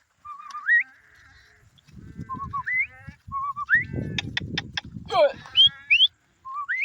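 Lamb bleating over and over in short, wavering calls that rise sharply in pitch at the end, with low rustling and a few sharp clicks about four seconds in.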